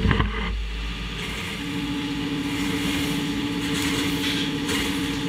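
CNC turning centre machining a spinning crankshaft under coolant spray: steady machine running noise, with a louder low rumble in the first second and a steady held tone from about a second and a half in.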